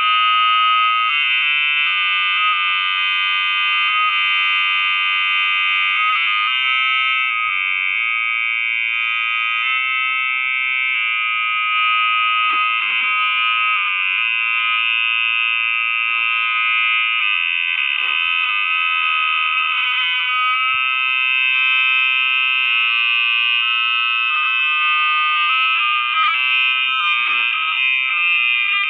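Loud, continuous shrill ringing of several high tones sounding together, shifting slightly in pitch now and then. This is audio feedback in a phone screen recording that keeps playing its own nested video back through itself.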